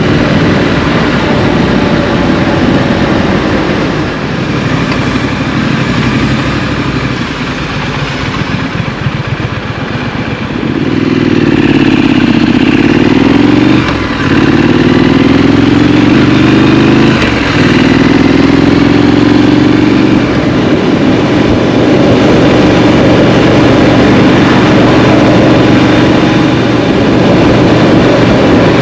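Triumph Street Scrambler's parallel-twin engine heard from the rider's seat: running at low revs at first, then about ten seconds in it accelerates through the gears, the pitch rising and dropping briefly at two gear changes, before settling into a steady cruise.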